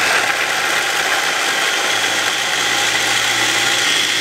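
Mitochiba CH 100 electric food chopper running continuously, its blades grinding garlic and red bird's-eye chillies with oil into a paste. A loud, steady whir.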